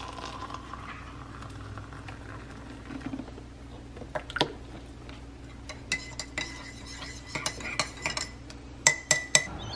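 Hot water poured into a ceramic mug, then milk poured in, then a metal teaspoon stirring and clinking against the inside of the mug. The clinks come quickly over the last few seconds, ringing, and are loudest near the end.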